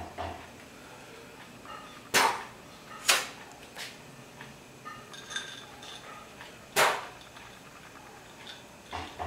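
A few sharp, loud clicks over quiet room tone: two about a second apart, a smaller one just after, and one more a few seconds later.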